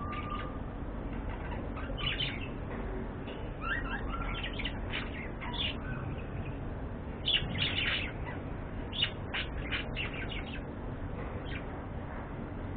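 Budgerigars chirping in quick clusters of short calls, loudest about seven seconds in, over a steady low background hum.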